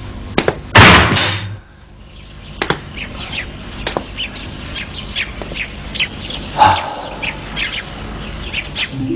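A loud, sharp burst of noise about a second in, then small birds chirping over and over, short falling chirps several times a second.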